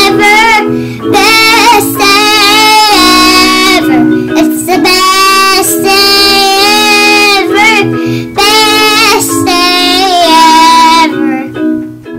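A young child singing a song in long held, wavering phrases over a steady instrumental backing, with short breaths between phrases. The singing fades out shortly before the end.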